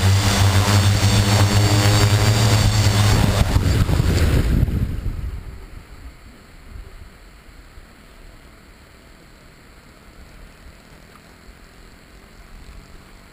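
Xaircraft X650 quadcopter's electric motors and propellers running with a steady hum as it comes down to land. About five seconds in they wind down and stop, leaving only faint wind.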